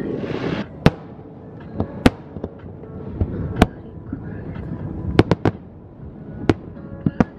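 Aerial fireworks shells bursting: about nine sharp bangs, three in quick succession about five seconds in, with a brief hiss at the start.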